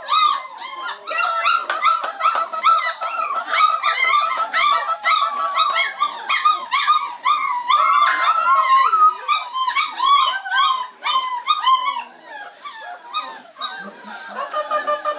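A litter of young Dutch Shepherd puppies whining and yelping, rapid high-pitched cries overlapping several times a second, thinning out about twelve seconds in. A steady tone runs underneath.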